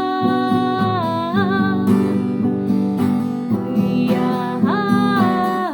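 Music: an acoustic guitar picking a steady accompaniment under a long, held melody line that glides to new notes twice.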